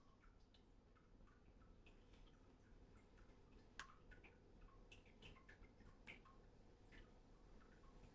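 Near silence, with faint scattered light clicks and ticks from yarn and a crochet hook being handled.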